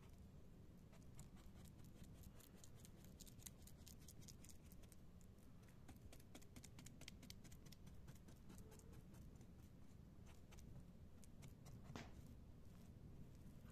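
Faint scattered clicks and soft scraping as a silicone spatula presses and smooths a layer of raw minced lamb flat in a frying pan, with one sharper click about twelve seconds in.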